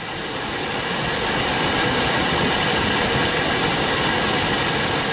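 L-39 jet's turbofan engine at takeoff power, heard from the cockpit on the takeoff roll as a loud, steady hiss. It grows louder over the first couple of seconds.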